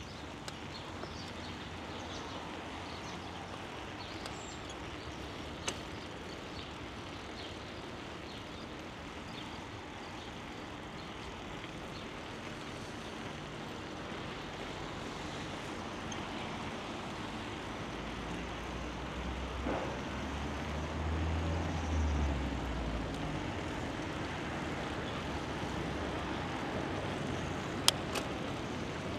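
Steady rushing noise of wind and tyres from a bicycle ride, with a low rumble that swells and fades about two-thirds of the way through. A few short clicks; the sharpest comes near the end.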